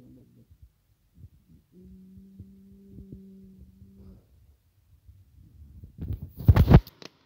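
A steady low hum that holds for a couple of seconds and breaks off, then a loud burst of rubbing and bumping against the phone's microphone about six seconds in as the hands and camera move over the cat.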